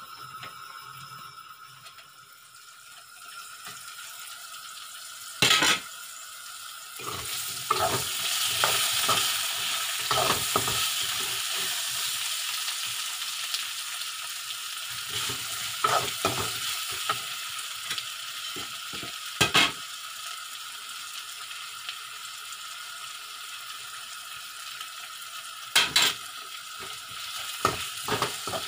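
Bottle gourd and potato pieces sizzling in hot oil in an iron kadai, stirred with a steel spatula that scrapes and knocks on the pan. The sizzle swells about seven seconds in, and a few sharp metal knocks stand out, the loudest near five, twenty and twenty-six seconds in.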